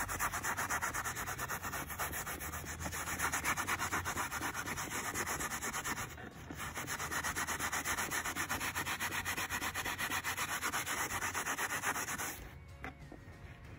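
SOS steel-wool soap pad scrubbed rapidly back and forth over plastic door-sill trim wet with cleaner. The scrubbing breaks off briefly about six seconds in, then runs on until it eases off near the end.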